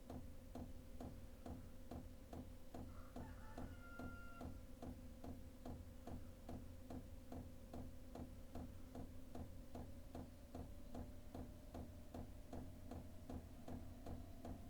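Diesel air heater's fuel dosing pump ticking evenly about three times a second as it pumps fuel during first start-up, over the steady hum of the heater's blower fan, whose whine rises slightly in pitch after about ten seconds.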